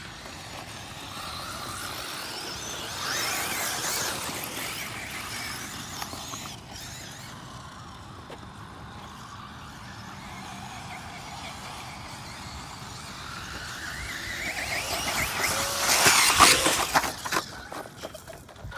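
Radio-controlled off-road car's motor whining, rising and falling in pitch as it speeds about. It swells once about three to four seconds in, then builds to its loudest pass about sixteen seconds in, with tyres clattering on loose dirt as it goes by close.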